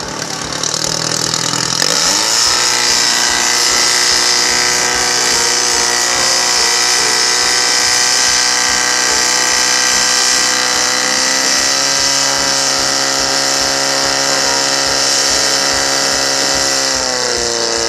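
Portable fire pump's engine revving up to full speed about two seconds in and running hard and steady while it pumps water through the attack hoses, its revs falling near the end.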